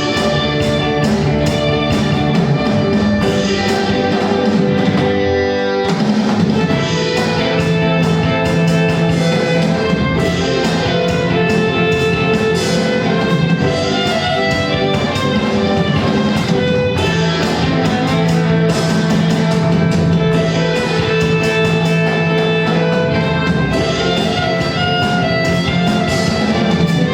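Live band playing an instrumental passage, guitar over a steady drum-kit beat, with a brief break about five seconds in.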